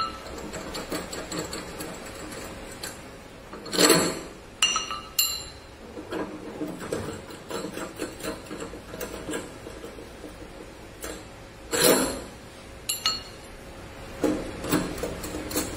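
Sections of a rain shower head's metal ceiling-mount hanging rods being unscrewed and set down on a table: scattered clinks and knocks over handling noise. The loudest knocks come about four seconds in and about twelve seconds in, with a few more near the end.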